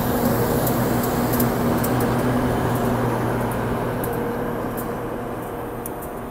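White Pass & Yukon Route diesel locomotives passing slowly at close range, their engines running with a steady low drone and a rumble of wheels on rail. The sound fades over the second half as the locomotives move away and the passenger coaches roll by, with light high clicks from time to time.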